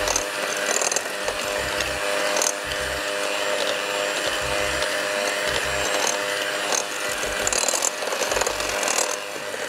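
Electric hand mixer running steadily, its beaters creaming butter and sugar in a glass bowl.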